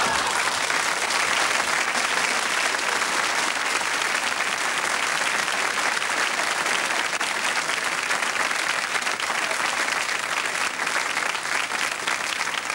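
Studio audience applauding steadily, with laughter mixed in at the start, after a punchline.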